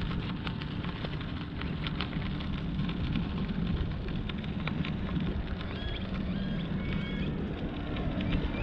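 Bicycle riding over packed dirt: wind buffeting the camera microphone and tyres rolling, with many small clicks and rattles from the bike. A few short bird chirps come in past the middle.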